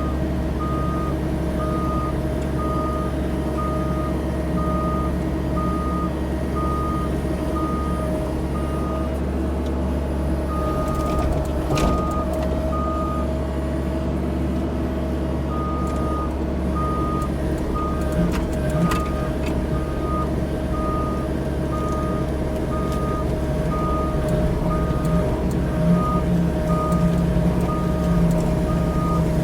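CAT 304 E2 mini excavator's diesel engine running steadily while its travel alarm beeps about one and a half times a second, pausing twice, as the machine tracks. A couple of sharp knocks come midway, and the engine note rises under load near the end.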